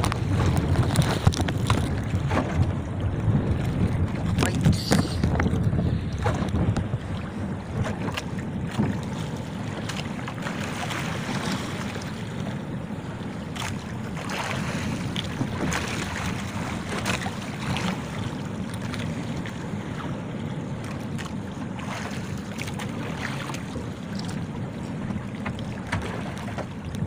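Wind buffeting the microphone and choppy sea water sloshing against a small wooden outrigger boat, louder for the first several seconds, with scattered knocks and clatters on board.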